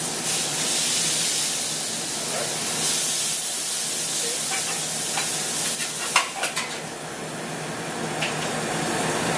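Beef burger patty sizzling on a hot flat-top griddle, a steady frying hiss, with a few sharp clinks about six seconds in.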